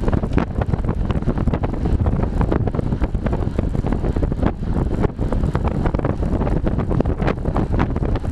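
Wind rushing and buffeting over a bike-mounted GoPro's microphone as the road bike travels at around 30 mph, a loud steady roar with constant gusty flutters.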